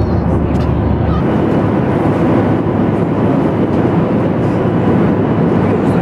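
Steady rumble and hiss of a jet airliner's engine and airflow noise, heard inside the passenger cabin.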